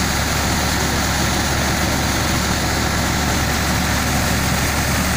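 Mahindra 595 DI tractor's diesel engine running steadily, driving a grain thresher through its power take-off. The engine's low drone mixes with the thresher's steady whirring rush.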